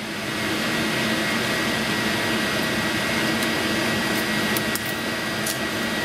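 Protective plastic film being peeled off a laser-cut 3 mm acrylic piece in one long steady pull: a continuous hissing rip with a thin, steady high whine, and a few small crackles near the end.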